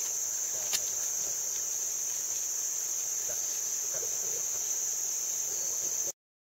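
Steady, high-pitched drone of a rainforest insect chorus, with a single sharp click just under a second in; the sound cuts off suddenly about six seconds in.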